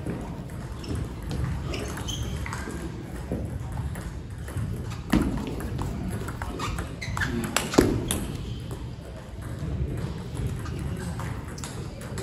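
Table tennis ball being hit back and forth in a rally, clicking off the rubber bats and bouncing on the table, with a couple of sharper, louder knocks midway. Other tables' balls tick and voices murmur in the hall.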